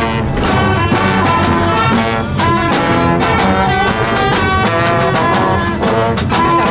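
Marching brass band playing a lively tune: trombones and sousaphone with other horns, over drum hits.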